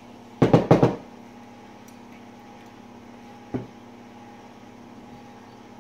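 Sharp metal clicks and clatter from an AR-15 bolt carrier being handled as its firing pin is tipped out: a quick run of four or five clicks about half a second in, then one more click a few seconds later.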